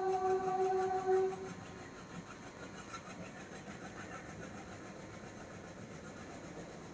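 WDM3A diesel locomotive's horn sounding one steady note that cuts off about a second and a half in, followed by the steady running noise of the passenger train moving along the track.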